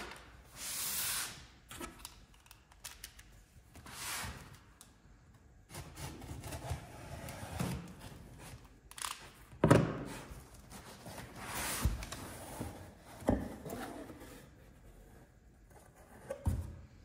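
Utility knife slicing the tape on a cardboard shipping box, with cardboard scraping and rubbing as the box is handled, and several sharp knocks, the loudest about ten seconds in.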